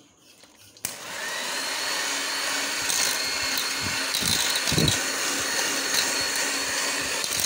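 Electric hand mixer switched on about a second in and running steadily, its beaters whipping cream and icing sugar in a steel bowl for icing, with the beaters knocking against the bowl now and then.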